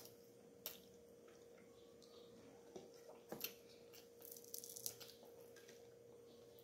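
Faint eating sounds: soft wet clicks and smacks of chewing and of fingers picking at grilled milkfish and rice, with a quick run of them about four to five seconds in, over a faint steady hum.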